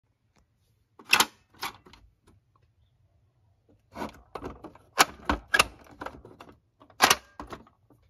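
Plastic buttons of a pop-up toy being pressed, with spring-loaded character doors snapping open: a series of sharp plastic clicks and clacks, two about a second in, a quick flurry from about four to six seconds, and two more near the end.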